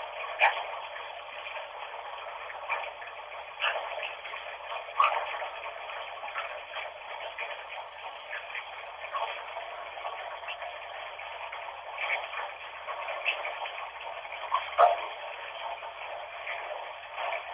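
Running bathwater, a steady rushing hiss that sounds thin with no bass, broken by irregular brief louder splashes and ticks.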